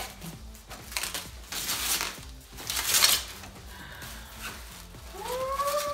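Plastic wrapping rustling and crinkling in short bursts as it is pulled off a canvas print panel. Near the end a long pitched tone rises and then falls.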